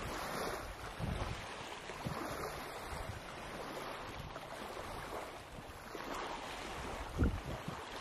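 Small Lake Michigan waves lapping on a sandy beach, with wind buffeting the microphone in gusts; the strongest gust comes about seven seconds in.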